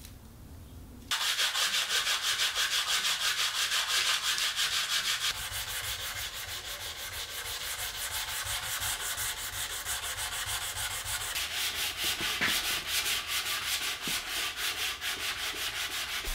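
Sandpaper on a hand-held wooden sanding block rubbing over a wooden table leg and its carbon-fibre joint, in quick, regular back-and-forth strokes that start about a second in.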